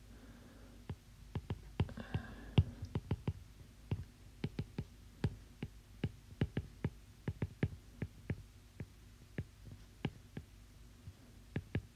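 Stylus tip tapping and clicking on a tablet's glass screen while handwriting, a string of quick, irregular taps.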